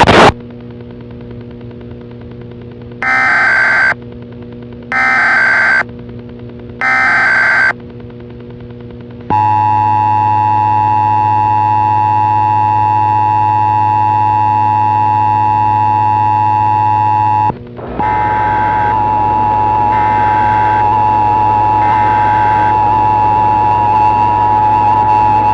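Emergency Alert System test tones: three SAME header data bursts about a second each, over a low hum. Then the two-tone EAS attention signal holds steady for about eight seconds and cuts off. Another steady tone follows, with three faint data bursts over it.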